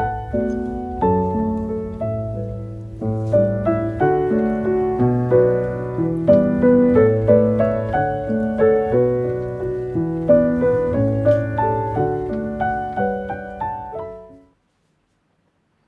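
Background piano music: a gentle solo piano piece playing a melody over low chords, which stops about fourteen seconds in, leaving silence.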